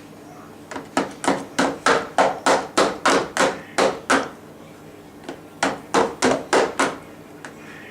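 Rapid, repeated banging on a hard surface, about three knocks a second: around a dozen in a row, a short pause, then five more. It is typical of a baby banging on her tray or table while eating.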